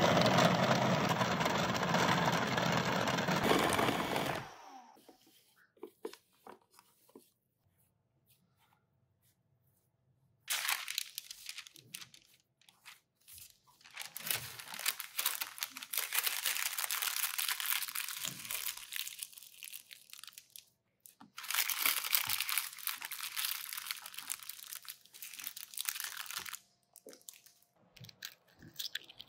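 A food processor runs for about four seconds, mixing flour, butter and ice water into pastry dough, then stops abruptly. After a pause, parchment paper crinkles and rustles in long stretches as the dough is pressed flat and folded in it.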